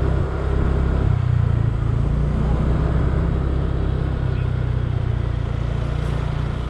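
Motor scooter riding along a road: a steady low rumble of the small engine, wind and road noise.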